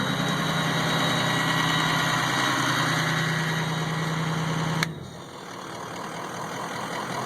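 Ford 6.0 Powerstroke V8 turbodiesel running through a 5-inch straight-pipe exhaust, a steady high turbo whistle over the engine note. About five seconds in there is a sharp click and the sound drops suddenly, then slowly builds back up.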